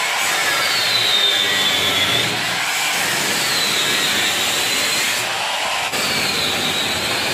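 Electric angle grinder with a cut-off disc cutting through the sheet steel of a steel cupboard, a loud steady grinding hiss with a high whine that dips in pitch and recovers about three times as the disc bites into the metal.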